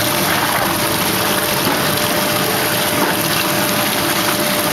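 Plaster panel making machinery running: a steady rushing noise with a faint steady whine throughout.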